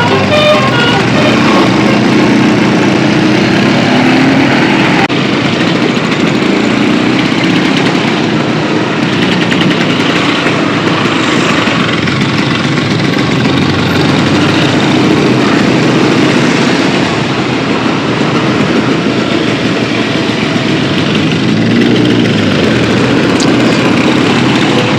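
Motor vehicle engines running on the road with heavy road noise, their pitch rising and falling as they rev.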